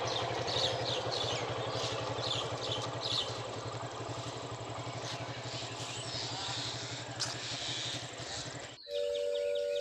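Outdoor ambience: birds chirping over a low, steady engine hum, with no elephant calls heard. Near the end the sound cuts off abruptly and gives way to a steady two-note tone that slowly drops in pitch.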